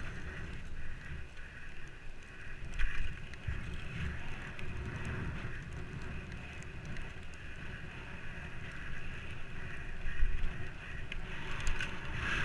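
Bicycle riding over asphalt: tyre noise and wind rumbling on the camera microphone, with louder bumps about three seconds and ten seconds in.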